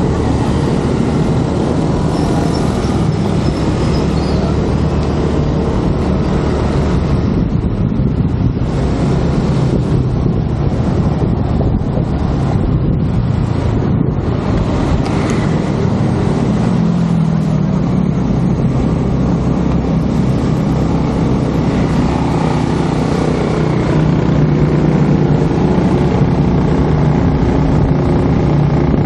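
Small automatic motor scooter running at road speed: a steady engine hum under constant wind rush on the microphone. Loudness holds even throughout.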